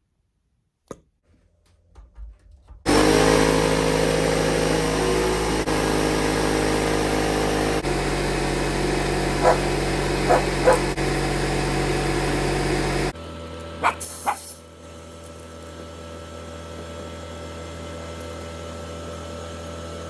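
Garage air compressor switching on about three seconds in and running loudly and steadily while it builds air pressure. A few short sharp sounds cut through it, and after about ten seconds it gives way suddenly to a quieter steady hum.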